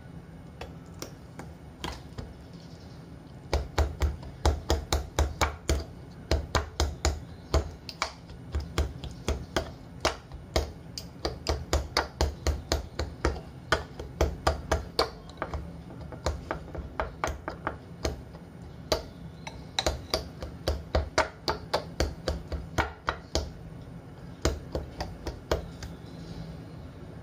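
Metal fork repeatedly jabbing raw pork in a bowl of marinade to tenderize it: sharp clicks about four a second, in runs with short pauses, starting a few seconds in.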